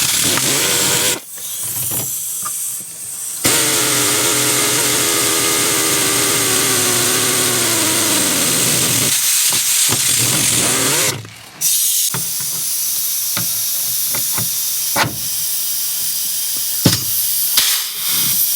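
A power tool motor running in long bursts with a strong hiss, its pitch slowly sinking as it works under load, stopping briefly a few times. In the second half it runs quieter, with sharp clicks.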